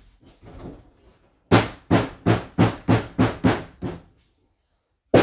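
Hammer blows knocking together the wooden panels of a pine wardrobe: a quick run of eight sharp knocks, about three a second, with the last one weaker, then a single sharp knock at the very end.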